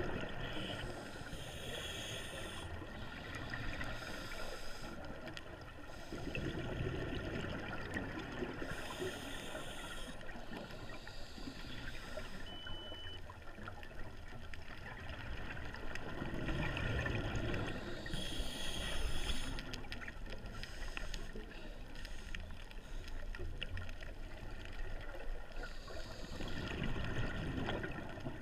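Scuba breathing through a regulator underwater: a hiss on each inhale and a low bubbling rumble on each exhale, repeating as slow, even breaths about every eight seconds.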